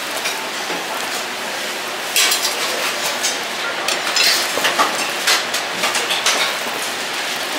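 Cutlery and plates clinking at a dining table over steady background noise, with a run of sharp clinks from about two seconds in.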